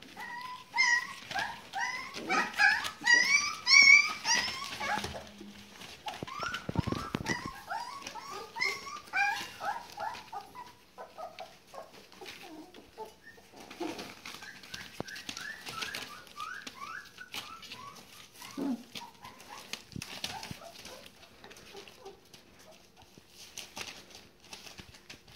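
Border collie puppies, about four weeks old, whining and yelping in many short high calls that slide up and down, busiest in the first few seconds and returning in smaller bursts later. Newspaper rustles under their paws between the calls.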